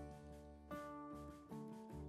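Background instrumental music: a melody of plucked string notes, a new note striking about two-thirds of a second in and again near the end.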